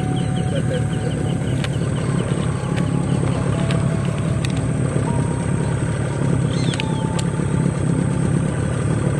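Motor running steadily with a low, even hum, typical of a boat engine idling. A bird chirps over it near the start and again about two-thirds of the way through.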